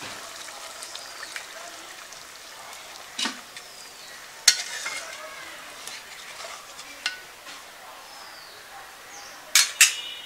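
Fish curry boiling in a metal pot over a wood fire, a steady bubbling hiss, with a ladle stirring and clinking against the pot a few times; the loudest are two sharp knocks just before the end.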